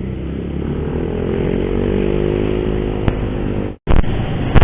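Motorcycle engine running and climbing slowly in pitch as it accelerates, with wind noise, picked up by a helmet-chin-mounted action camera mic. Near the end the sound cuts out for a split second and returns louder, with a few sharp clicks.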